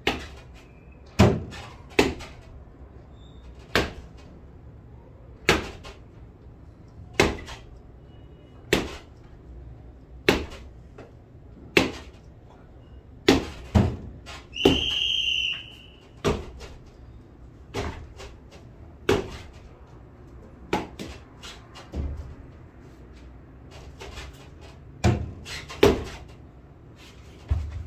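Cricket bat repeatedly striking a tennis ball hung on a string, a sharp knock every second or two, sometimes two in quick succession. About halfway through there is a brief high whistle.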